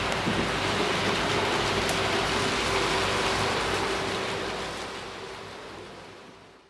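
OO-gauge model train running on its track: a steady rushing hiss of wheels and running gear with a steady motor hum underneath, fading out over the last two seconds.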